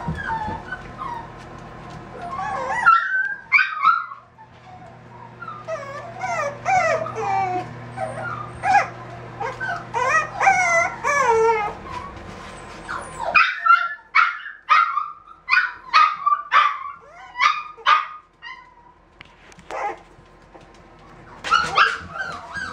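Five-week-old miniature dachshund puppies whining in high cries that slide up and down, then yipping in quick short barks from about halfway through.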